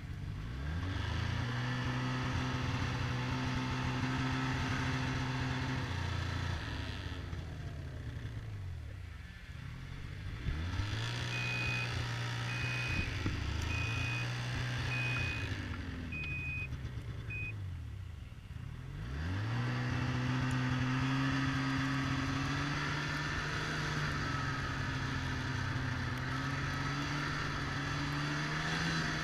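Snowmobile engine running as the sled is ridden, its pitch climbing and holding three times with the throttle eased off in between. A short, even electronic beep repeats about once a second through the middle stretch.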